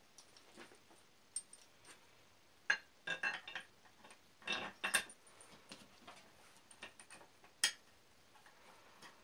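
Small metal fasteners (nuts, bolts and washers) clicking and clinking against the cast-iron swivel base of an old bench vise as they are fitted by hand. The taps are scattered, busier about three seconds in and again about four and a half seconds in, with one sharp click about seven and a half seconds in.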